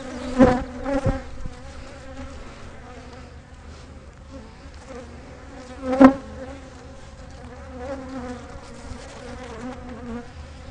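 A swarm of Africanized honey bees buzzing right around the microphone: a steady hum of many wings, with a few brief louder swells, the loudest about six seconds in. The bees are in full defensive attack and not letting up.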